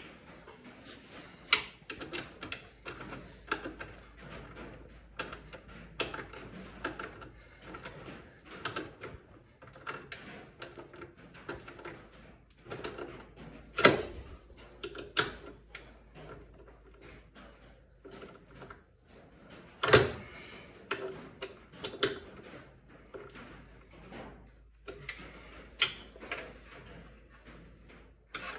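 Hand ratchet clicking in short irregular runs as the plow-mount bolts are tightened, with a few louder sharp knocks spread through.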